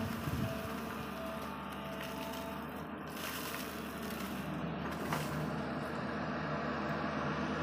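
SANY hydraulic crawler excavator's diesel engine running steadily under load as the bucket is lifted out of the dig and the boom swings, with a couple of faint knocks about three and five seconds in.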